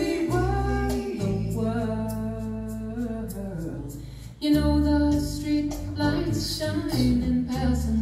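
Pop ballad playing over home hi-fi speakers: a woman's voice holds long sung notes over a bass line. The music dips briefly about four seconds in, then comes back louder and fuller.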